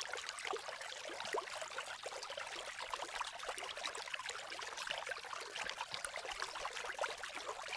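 Hot-spring bath water trickling and splashing steadily, a light babble with many small splashes.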